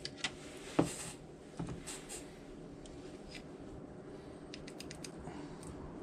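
A few light knocks and clicks of small parts or tools being handled, the strongest a little under a second in, over a steady low hum.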